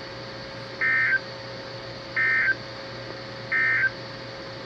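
Three short bursts of EAS/SAME digital data tones from a weather radio receiver, about a second and a half apart, each a fraction of a second long: the end-of-message signal of a Required Weekly Test. A faint steady hum and hiss from the radio lie underneath.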